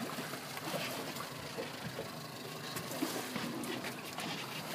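Wind and water noise aboard a small open fishing boat at sea, with a few light knocks.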